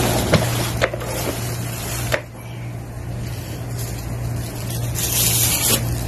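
Several sharp clicks and knocks of hard plastic as a bagless canister vacuum cleaner's body and dust container are handled during assembly, then a short rustle of plastic wrapping near the end, over a steady low hum.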